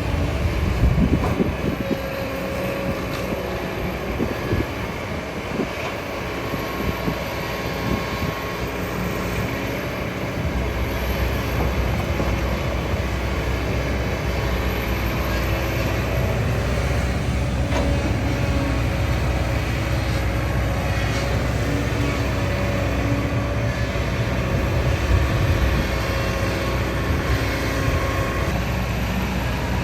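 Excavator's diesel engine and hydraulics running steadily, a heavy rumble with a faint whine over it; the rumble grows heavier about ten seconds in.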